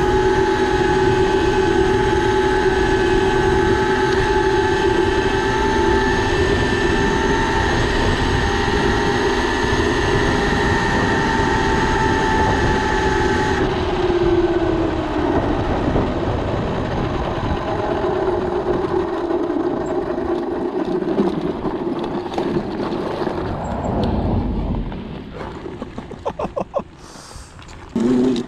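A 6000 W 72 V electric mini bike motor whining at a steady speed under wind and tyre noise. About halfway through the whine drops in pitch as the bike slows, and near the end the sound gets quieter, with a few ticks.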